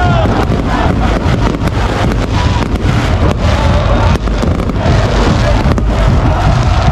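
Fireworks crackling and banging many times over the loud din of a stadium crowd, with a heavy low rumble of wind on the microphone.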